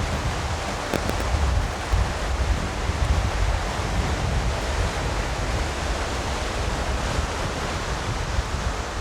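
Wind buffeting the microphone: a steady rushing hiss over a low, uneven rumble.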